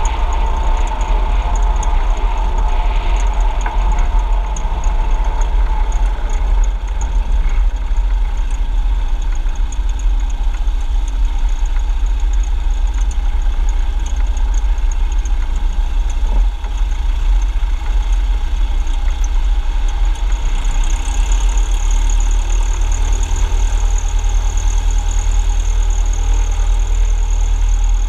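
Diamond DA40 light aircraft's piston engine and propeller running steadily at low taxi power. Its tone shifts slightly about twenty seconds in.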